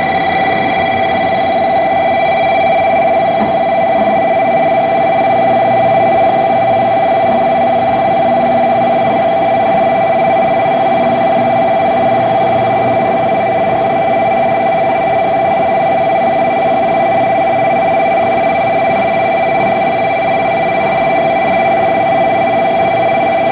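A loud, steady high-pitched tone with fainter higher tones above it, held unbroken without any change.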